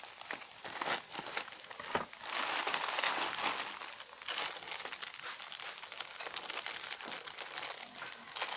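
Plastic packaging crinkling and rustling as it is handled and opened, loudest from about two to four seconds in, then softer.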